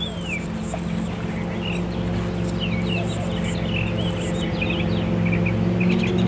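Birds chirping in many short, quick notes that bend up and down, over a steady low engine hum that grows slightly louder.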